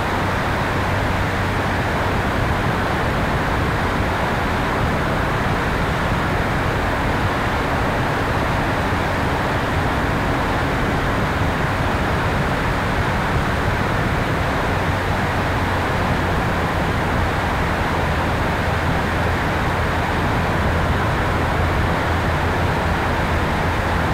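Steady rush of airflow over an electric RC airplane's onboard tail camera in flight, with the even drone of its electric motor and propeller underneath.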